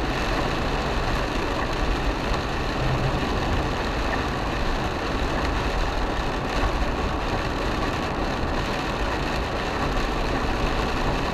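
Steady road noise inside an Isuzu MU-X driving on a rain-soaked highway: hiss from the tyres on the wet road and rain, over the engine running.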